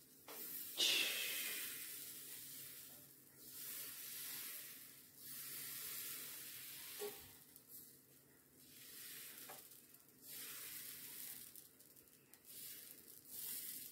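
Crêpe batter sizzling faintly on a hot electric crêpe maker as a wooden spreader sweeps it across the plate. The hiss swells and fades about six times, once with each stroke: a satisfying little noise.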